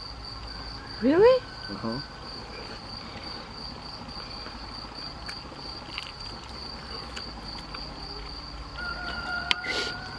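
Insects chirring steadily at one high pitch, without a break.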